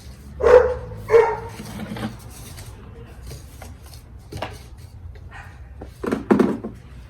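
A dog barking: two short barks about half a second apart, then one more near the end.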